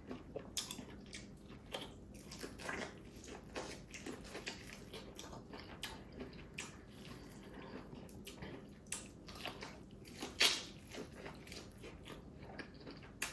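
Close-miked chewing and biting of food, a steady run of small mouth clicks with one louder one about ten and a half seconds in.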